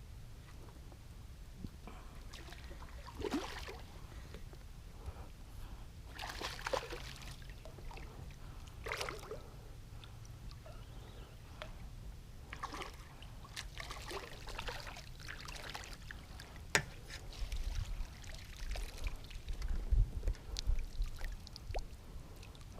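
Water lapping and splashing against a small fishing boat, in short bursts every few seconds over a low steady rumble, with a sharp knock about seventeen seconds in and heavier low bumps near the end.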